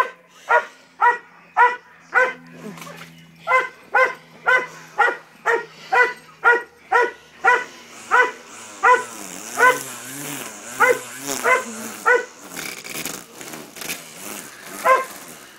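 A dog barking rapidly and repeatedly, about two barks a second, at a weed eater, with a low steady hum underneath. About 12 seconds in the barking breaks off into a couple of seconds of rough noise, and there is one last bark near the end.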